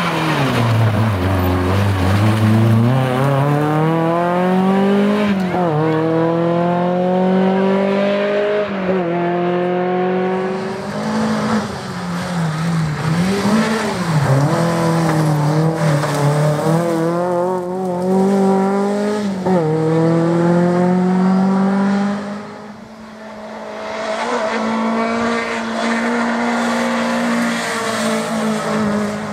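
Škoda Felicia Kit Car rally car's engine pulling hard through the gears. Its pitch climbs over a few seconds and drops at each gear change, again and again. It goes briefly quieter a little past two-thirds of the way through.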